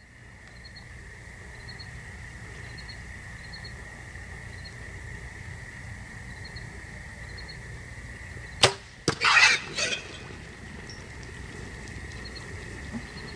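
A single sharp, loud shot about two thirds of the way in, taken at wild hogs feeding at night. A second, weaker crack follows within half a second, then a short, harsh burst of noise lasting under a second. A steady high-pitched hum and faint, regularly spaced chirps run underneath.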